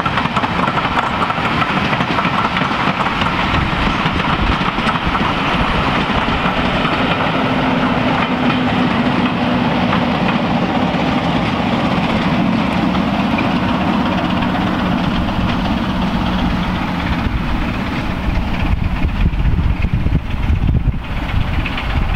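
Diesel-hauled passenger train running past, with the Class 50 locomotive's engine and the coaches' wheels clattering over the rail joints. The low rumble of a second diesel locomotive at the rear grows stronger near the end as it draws level.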